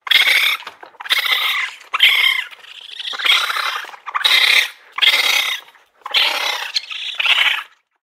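Raccoon chittering: a string of about eight short, raspy calls, each about half a second long.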